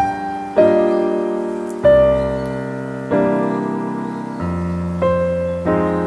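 Slow background piano music: a chord is struck about every second and a quarter, each ringing out and fading before the next.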